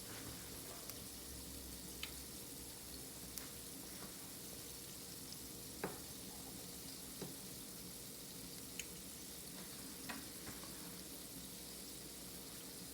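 Faint steady sizzle from a hot pan of balsamic reduction deglazing the pan off the heat, with a few light clicks and taps scattered through as food is set out on a plate.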